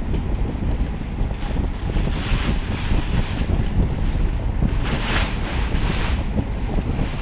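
Air buffeting the microphone: a steady low rumble, with a few brief hissing rustles.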